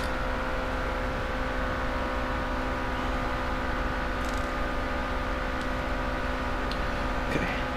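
Steady mechanical hum of running shop equipment, with a few faint light clicks of metal engine parts being handled.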